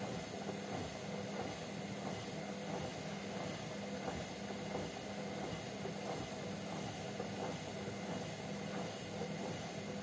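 Hotpoint Ariston front-loading washing machine in its wash cycle: the motor hums steadily as the drum turns, with sudsy water and laundry sloshing and tumbling inside.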